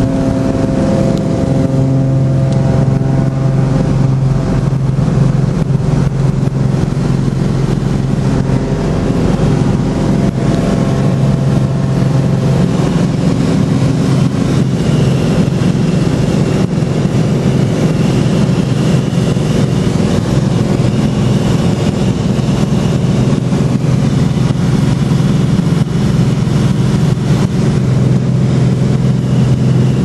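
Cessna 206's six-cylinder piston engine and propeller running steadily at takeoff power through the takeoff and climb-out, heard from inside the cabin.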